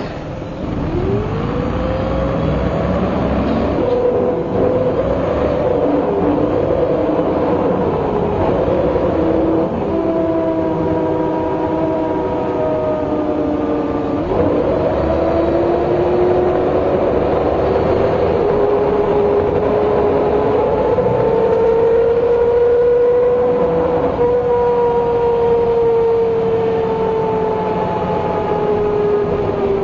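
MCW Metrobus double-decker with its Gardner diesel engine, pulling away and running on the road, with a prominent whine from the differential. Several whining tones climb in pitch as the bus gathers speed, break off around four and fourteen seconds in, climb again, and fall slowly near the end as the bus eases off.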